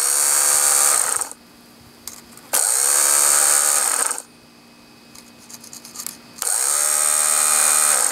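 Craftsman riding mower's electric starter motor spinning freely off jumper cables in three short runs, each about a second and a half long, winding down in pitch after each cut-off. It sounded a little rough, and the starter has a burned-up brush.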